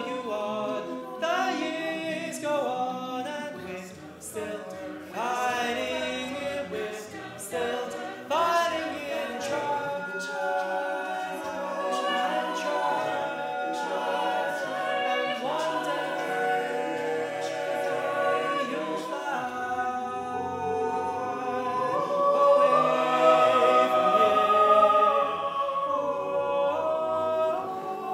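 A cappella vocal group singing in close harmony, several voices holding and moving chords with no instruments; the sound swells louder about two-thirds of the way through.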